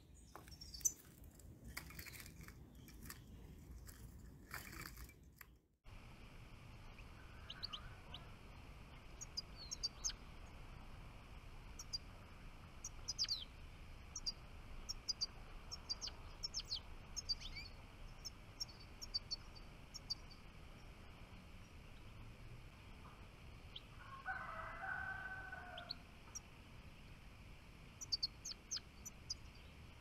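European goldfinches calling with scattered short, high twittering notes: a caged decoy goldfinch luring wild goldfinches to a trap cage. Late on, a rooster crows once for about two seconds, and the first few seconds hold some rustling and clicks.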